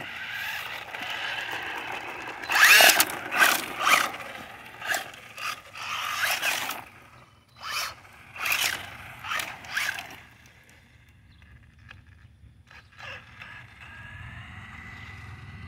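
Remote-control car's electric motor whining and revving in repeated short bursts, the wheels spinning as it tries to get unstuck. It goes quieter for the last few seconds, with only a faint whine.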